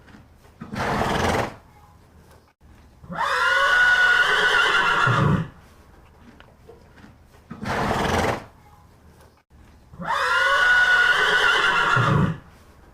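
Horse whinnying twice, each whinny about two seconds long with a high wavering tone, and each preceded by a short breathy burst.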